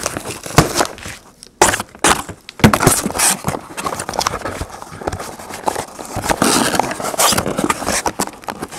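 Cardboard trading-card hobby boxes handled and pulled out of a cardboard case close to the microphone: a few separate knocks, then steady scraping and rustling of cardboard against cardboard.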